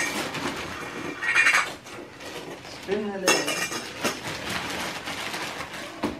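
Gift wrapping paper rustling and tearing as a present is unwrapped, mixed with a few sharp clinks and clatters of metal pots and pans.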